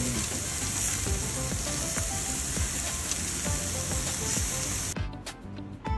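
Beef sizzling on an electric smokeless grill, with soft background music underneath. The sizzling cuts off suddenly about five seconds in, leaving only the music.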